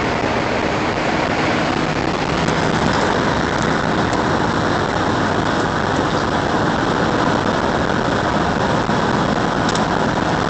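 Steady tyre and road noise with wind rush, heard inside a vehicle's cabin while cruising at highway speed.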